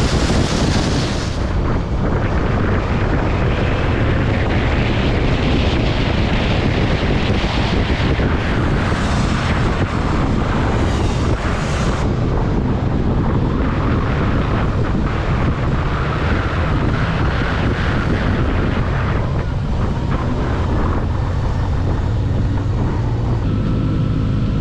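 Kawasaki Z900RS's 948 cc inline-four with its 4-into-1 exhaust running at speed, under heavy wind rush on the microphone. About three-quarters of the way through the wind rush drops and a steadier, lower engine note is left.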